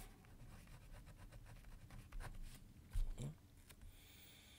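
Faint scratching of a pen writing on paper, then a short knock about three seconds in.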